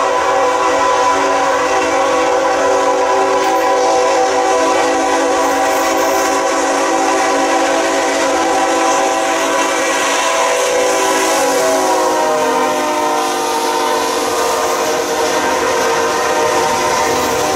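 Diesel locomotive air horn on CREX 1525 sounding one long continuous chord of several notes. The chord drops in pitch about two-thirds of the way through as the locomotive passes. Loaded tank cars then roll by beneath it.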